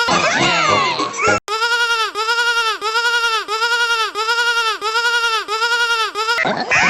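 Bleating sheep sound effect, an edited, wavering bleat whose pitch swings up and down about three times a second. A jumbled burst of overlapping sliding tones opens it, the sound cuts out for an instant about a second and a half in, and another jumbled burst comes near the end.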